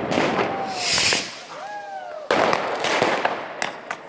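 Fireworks going off at close range: a ground fountain hissing as it sprays sparks. From a little over two seconds in comes a dense run of sharp cracks and pops as more fireworks are set off.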